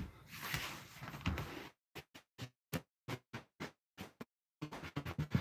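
Rummaging and handling noise: soft rustling, then a run of light clicks and taps, about three a second, with dead silence between them.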